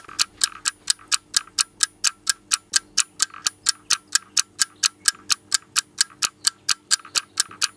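Clock-ticking sound effect: fast, even ticks, about four to five a second, marking time passing while the oven preheats.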